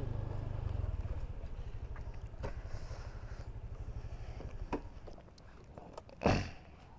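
Honda Vario 125 scooter's single-cylinder engine running at low speed as the scooter rolls to a stop, fading out about five seconds in. Near the end comes a single sharp knock, the loudest sound.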